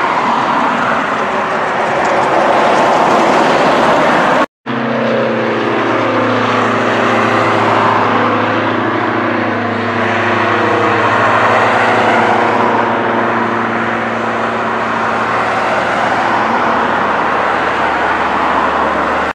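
For the first four seconds, a steady rushing noise that cuts off abruptly. Then a twin-engine propeller light aircraft climbs past overhead, its engines droning steadily while some of the tones slide up and down in pitch as it passes.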